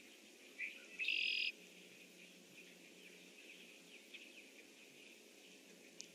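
Red-winged blackbird singing once: a short note followed by a loud half-second buzzy trill about a second in, then a few faint chirps.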